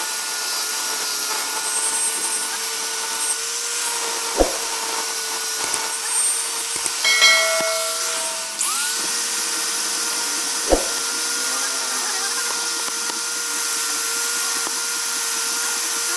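Electric power tool motor running steadily with a high hiss and whine. It briefly changes about seven seconds in, then spins back up about a second later, with two sharp knocks along the way.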